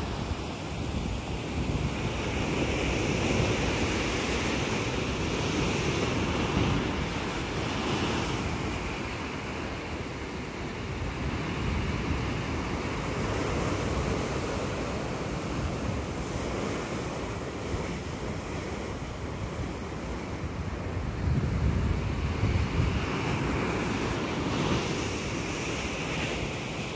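Sea surf washing and breaking against granite shore rocks, a continuous wash that swells and eases, with wind buffeting the microphone in gusts. The low rumble is strongest about three quarters of the way through.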